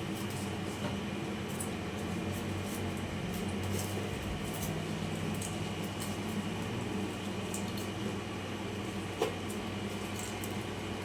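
Steady low mechanical hum with scattered faint clicks and one sharper tap about nine seconds in.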